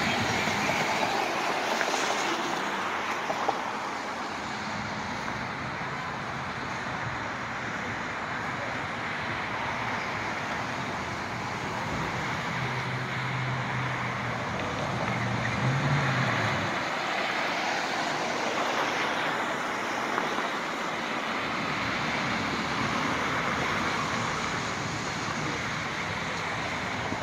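Steady outdoor road-traffic noise, an even rushing hiss of distant vehicles. A low engine hum comes up for a few seconds just past the middle and then fades.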